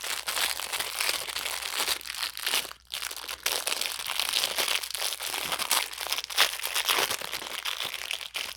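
Plastic packaging crinkling and crackling as it is handled and opened, with one short pause a little under three seconds in.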